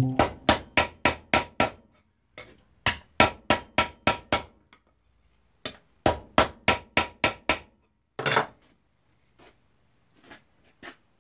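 A hammer striking sheet metal in three quick runs of blows, about four a second, with a short pause between runs and a light metallic ring. The metal is being shaped into a seat mount plate. A brief scraping sound comes near the end, followed by a few light taps.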